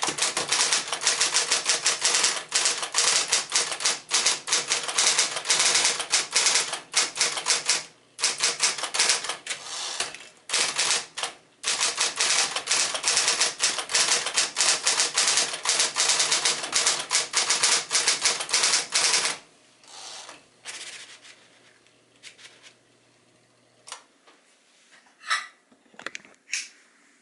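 1965 Sears Electric Twelve electric portable typewriter (Smith-Corona 5-series mechanism) being typed on fast, a rapid run of powered key strikes with a couple of short pauses. The typing stops about two-thirds of the way through, leaving the motor's faint low hum for a few seconds until it switches off, then a few separate clicks and knocks near the end.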